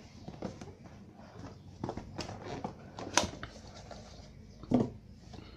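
Cardboard smartphone box lid being slid off its base by hand: soft rubbing and handling noise with a few light taps and clicks, the sharpest about three seconds in.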